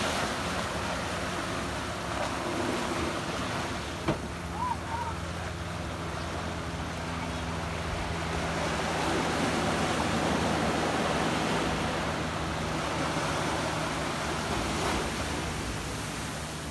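Small ocean waves washing up on a sandy beach and breaking against rocks, a steady surf hiss that swells a little midway. A single sharp click about four seconds in.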